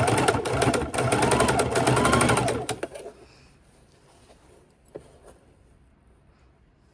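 Sewing machine stitching double-sided bias tape onto fabric, running in two quick runs of stitches with the motor pitch rising and falling, then stopping about three seconds in. A single light click comes near the end.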